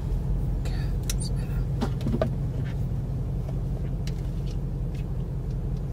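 Steady low rumble of a car heard from inside the cabin, with a few light clicks scattered through it.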